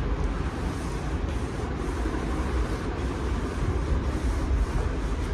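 A steady low rumble, with faint scrapes and rustles of gloved hands pressing potting soil and handling plastic.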